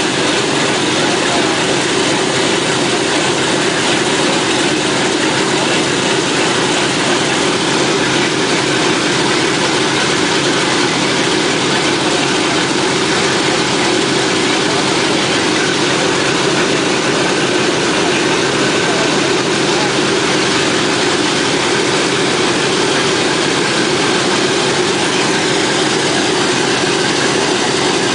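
Boeing B-17 Flying Fortress's Wright R-1820 Cyclone nine-cylinder radial engines running steadily on the ground with propellers turning. The sound is a loud, even drone that holds the same pitch and level throughout.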